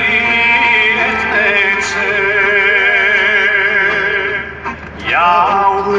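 Men singing in a van's cabin, holding one long wavering note for about four seconds. The note breaks off and a new one swoops upward about five seconds in.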